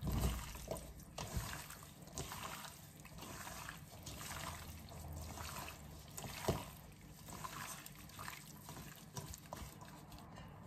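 Gloved hand mixing raw shrimp in marinade in a stainless steel bowl: a run of soft, wet, irregular strokes as the shrimp are turned over.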